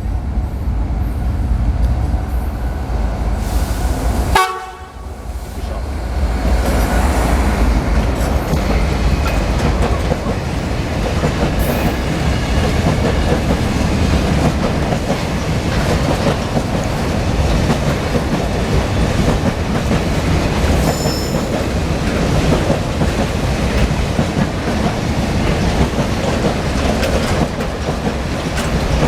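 Long freight train passing, its wagons rumbling and clacking over the rail joints without a break. About four seconds in there is a short horn blast.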